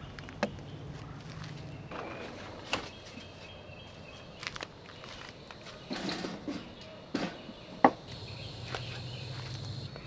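Objects being handled and set down on a wooden picnic table and a small kettle grill: a scattering of sharp knocks and clacks, the loudest about eight seconds in, over a steady low hum.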